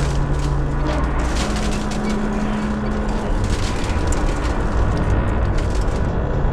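Tower crane's steel structure creaking and grinding, with many small metallic clicks and crackles over a steady low hum; a second, higher hum joins for a couple of seconds in the middle.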